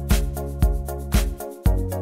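Background music with a steady beat, about two beats a second, over a bass line and repeated chords; the bass drops out for a moment near the end before a new phrase starts.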